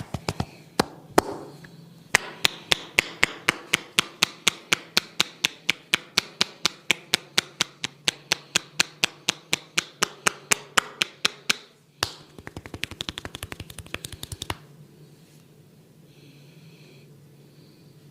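Barber's percussive head-massage tapping: sharp, even strikes at about four a second, breaking into a faster patter for a couple of seconds and then stopping.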